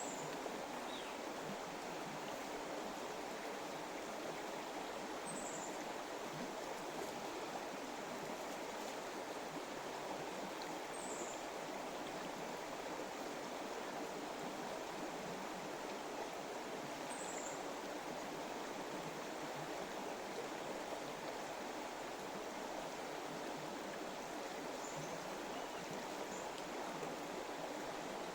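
Stream water running steadily, a constant rushing sound, with a faint short high chirp recurring about every six seconds.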